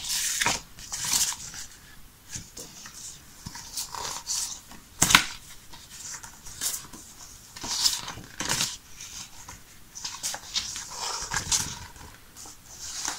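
Stiff laminated cardboard cards being handled and flipped through one by one, giving irregular rustles, slides and flicks, the sharpest about five seconds in.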